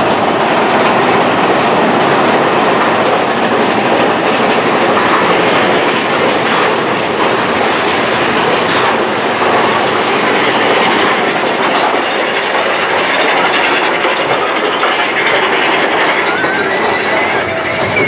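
Big Thunder Mountain Railroad mine-train roller coaster running along its track, heard from aboard: a steady, loud clatter and rumble of the wheels on the rails.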